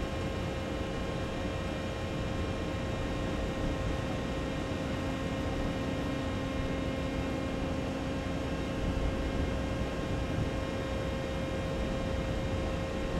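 Steady drone of a ship's machinery: a low rumble with a constant whine and several fixed tones over it. A lower hum joins about four seconds in and fades out about ten seconds in.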